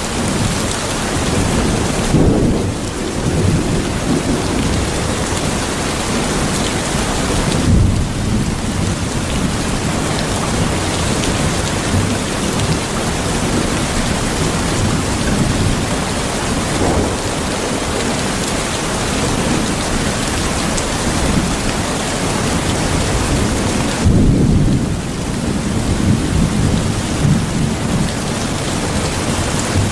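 Steady heavy rain, a dense even hiss, with low rolling thunder rumbling up three times: about two seconds in, around eight seconds, and the longest about twenty-four seconds in.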